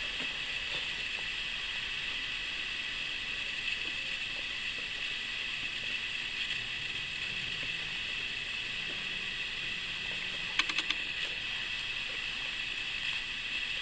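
Steady hiss of background noise, with a quick run of light clicks about ten and a half seconds in, from chopsticks being handled over a plastic bento tray.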